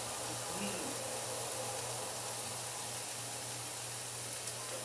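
Steady hiss of food frying in a frying pan on the stove, over a low steady hum.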